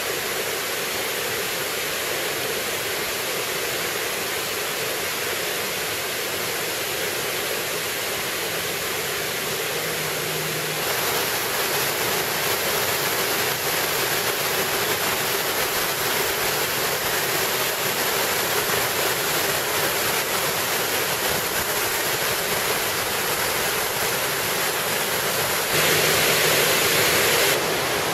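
Bridal Veil Falls rushing: a steady, dense roar of falling water. It gets louder and brighter about eleven seconds in, and louder again for a moment near the end.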